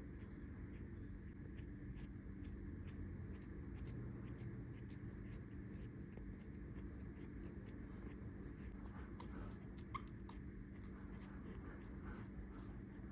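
Young puppies rustling and scratching on bedding as many small scratchy clicks, with a couple of faint high squeaks about ten seconds in, over a low steady hum.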